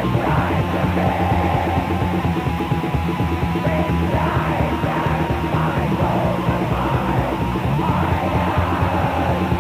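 Raw black metal rehearsal recording: an unbroken, dense wall of distorted guitars and drums, with harsh yelled vocals coming and going over it.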